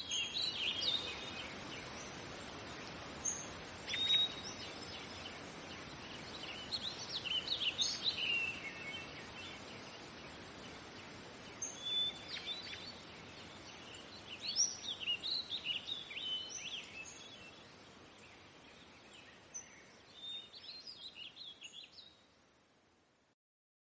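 A flock of migratory birds, the ones called Siberian birds, calling in short squeaky bursts over a steady background noise. The calls come in clusters and fade out near the end.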